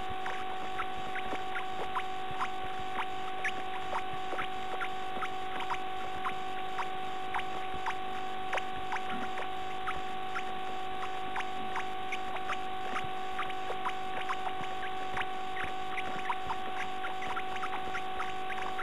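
Steady electrical hum and whine from a nest-box camera's audio line, with short, faint, high ticks or squeaks scattered irregularly, about one or two a second.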